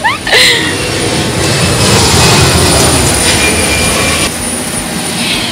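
Steady rushing noise with a low hum inside a parked airliner's cabin, from its ventilation running, with a thin, high, steady whine throughout. A brighter hiss rises about a second and a half in and drops away just past four seconds.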